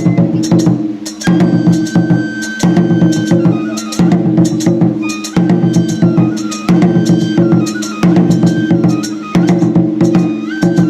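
Japanese shrine festival music (hayashi): rapid drum strokes in repeating phrases, with a high bamboo flute melody held on level notes and stepping between pitches.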